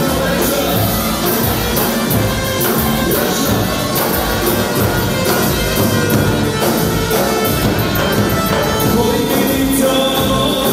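Music with singing, loud and steady throughout.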